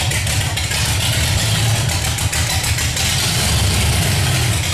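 V8 hot rod coupe engine idling steadily as the car creeps slowly into a garage.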